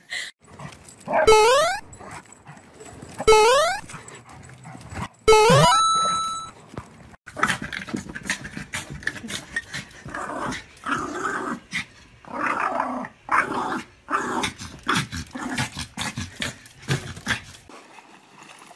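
Three short rising squeals about two seconds apart, then a small dog growling and barking in quick bursts for about ten seconds.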